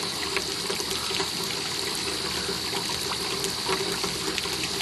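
Pond fountain jet spraying up and splashing steadily back into the pond water, with a faint steady hum underneath.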